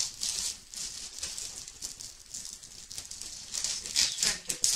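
Cardboard-and-plastic packaging of a boxed Funko Pop figure rustling and crinkling as it is handled, in irregular bursts that get louder near the end.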